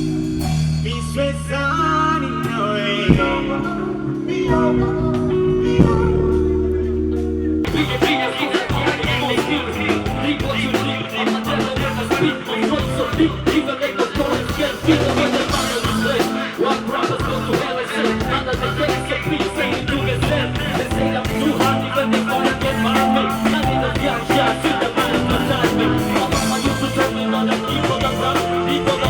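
Band music with some singing: a sparse opening of held bass notes and bell-like notes, then the full band with drums comes in suddenly about eight seconds in.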